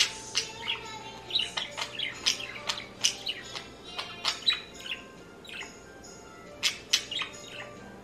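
Budgerigar warbling: a fast, chattering run of chirps, squeaks and clicks, with several louder sharp chirps and a few longer held notes in the second half.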